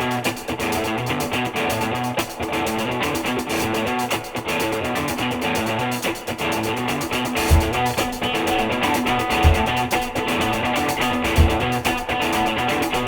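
Background rock music with guitar, starting abruptly. A deep beat lands about every two seconds in the second half.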